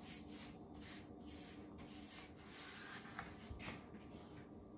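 Soft swishing of a cloth rag rubbed back and forth over a painted wooden board, working in a whitewash coat, in quick repeated strokes that die away about halfway through. A couple of faint clicks follow near the end.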